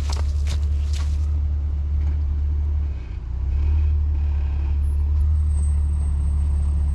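Off-road Jeep's engine running at low trail speed, a steady low drone that eases off briefly about three seconds in and then picks up again. A few short crackles sound in the first second.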